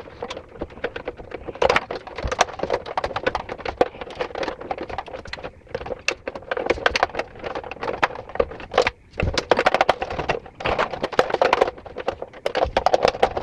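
Rapid, irregular clicking, tapping and rattling of hands working the electric water heater's wire connections at its junction box.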